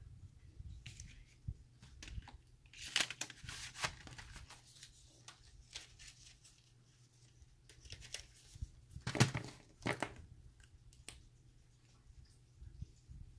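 Paper rustling and crinkling as a journal page is handled and slid around on a paper-covered table, in two bouts, about three seconds in and again about nine seconds in.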